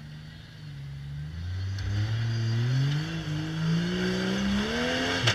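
Off-road rock buggy's engine revving under load as it climbs a stack of concrete slabs: low and steady at first, then rising steadily in pitch and getting louder from about two seconds in.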